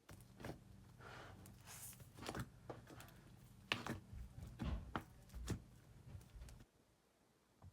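Slime being squeezed and pressed by hand, giving irregular short clicks, pops and squishes over a steady low hum. The sounds stop abruptly near the end.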